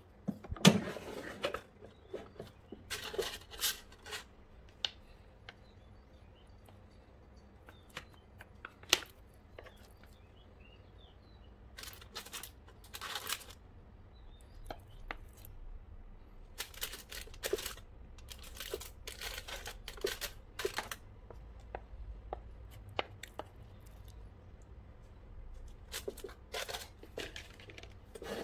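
Aluminium foil rustling and crinkling in irregular bursts as it is handled in an air fryer basket, with scattered clicks and knocks. A loud knock about a second in, as the air fryer's basket is pulled out.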